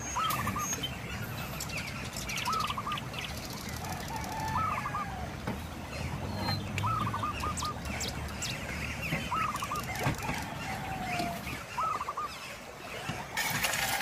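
An animal calling over and over, a quick run of three or four short notes about every two seconds, over a steady low rushing hiss. Near the end a louder, wider hiss of pouring or splashing water starts.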